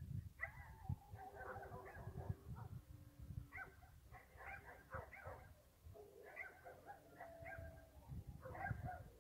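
Faint, distant canines yipping and barking in repeated clusters of short calls, several voices overlapping, with a few brief held whining notes.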